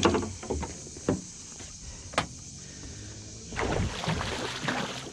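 A fish thrashing and splashing in a landing net held in the water beside a boat. There are a few sharp knocks in the first couple of seconds, then a longer burst of splashing about three and a half seconds in.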